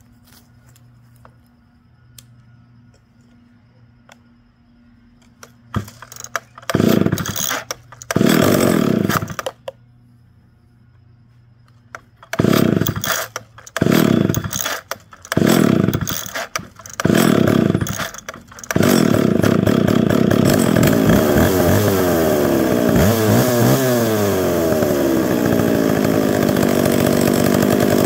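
McCulloch 610 two-stroke chainsaw cold-started by pull cord. Two pulls each give a short burst of firing that dies away, then after a pause four more short bursts. About three-quarters of the way through it catches and keeps running, its pitch wandering for a few seconds before it settles.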